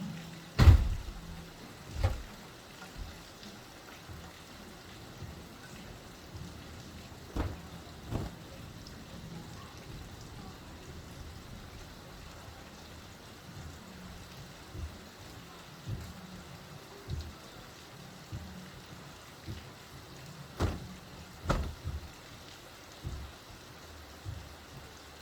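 Light rain falling steadily, with scattered heavier drops landing close by as sharp irregular taps, the loudest about a second in.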